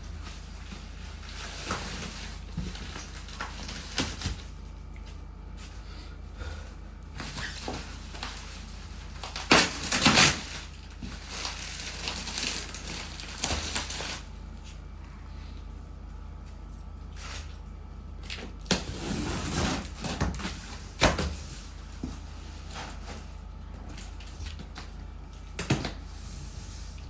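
A cardboard shipping box being opened and its packaging handled: scattered rustles and knocks, with louder rustling bursts about ten seconds in and again around twenty seconds in, over a steady low hum.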